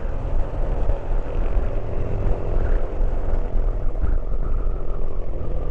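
A motorcycle riding along: steady engine and road noise under heavy wind rumble on the microphone.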